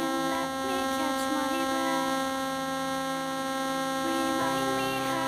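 Steady electrical hum and whine, made of many fixed, evenly spaced tones that do not change. A lower tone joins about four and a half seconds in.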